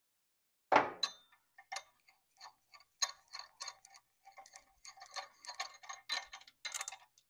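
Hand tools on a pit bike's engine: one sharp metal knock about a second in, then a run of small, irregular metallic clicks as bolts are worked loose with a socket ratchet and fingers.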